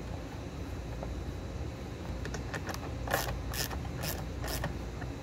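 Hand screwdriver driving a short screw through a licence plate into a plastic licence plate bracket. It gives a run of clicks, faint at first, then four louder ones about half a second apart.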